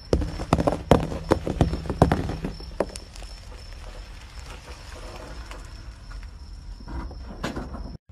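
Car tyre rolling slowly over a row of filled balls, which burst one after another as a quick run of sharp pops and crunches over the first three seconds. A low rumble of the tyre on the concrete follows, with a few more cracks near the end.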